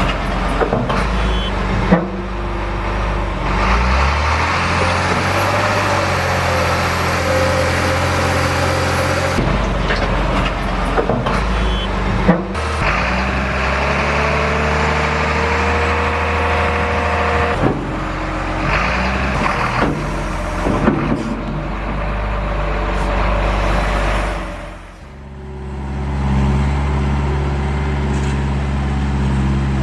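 Custom-built RC hydraulic construction models working: motors and hydraulic pumps run with a steady hum and whine. The hum starts, stops and shifts pitch in steps as the machines move and lift. A high whine rises about four seconds in and holds, and the sound drops off briefly about 25 seconds in.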